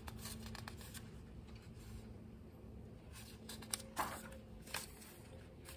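Pages of a picture book being turned by hand: a few soft paper rustles and light clicks about three to five seconds in, over a quiet room with a faint steady hum.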